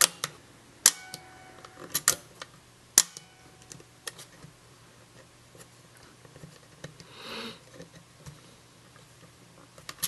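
Controls of an Argus C3 rangefinder camera clicking as they are worked by hand: a few sharp mechanical clicks, the loudest about a second in and about three seconds in, with smaller ticks between. A short soft rub follows a little past the middle.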